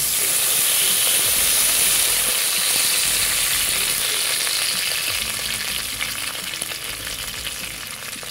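Cooking oil poured into a hot aluminium pot, sizzling loudly over lemongrass stalks, garlic cloves, shallots and lime leaves; the hiss eases off gradually over the last few seconds.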